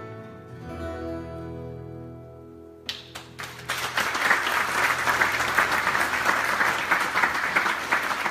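Acoustic guitar's last chord ringing and slowly dying away, then an audience breaking into applause about three seconds in, which keeps going.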